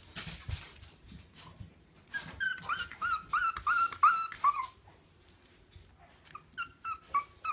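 Bulldog puppy whimpering in its sleep while dreaming: a run of short high whines at about three a second, then after a pause a second run of shorter whines near the end.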